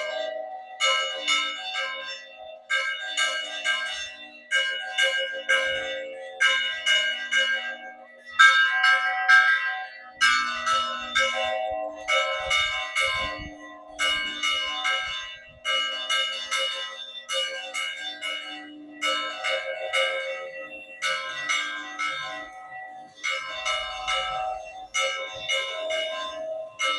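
Church bells rung by hand, struck over and over in quick uneven clusters of strokes, each bell ringing on between strikes.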